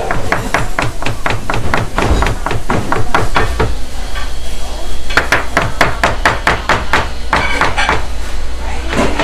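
Chef's knife chopping quickly on a white plastic cutting board, about five strokes a second, in two runs with a short pause a little under four seconds in.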